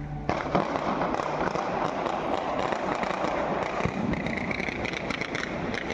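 Dense, rapid crackling of firecrackers going off in quick succession, many small bangs running into one another. It starts suddenly just after the start.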